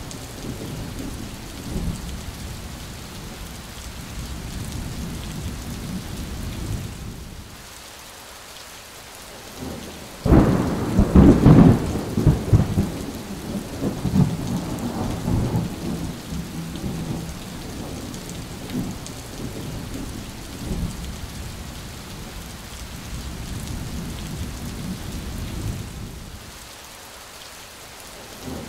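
Heavy rain falling through a thunderstorm. About ten seconds in, a sudden loud thunderclap breaks into a rolling rumble that goes on for several seconds. The rain and rumble die down briefly just before the clap and again near the end.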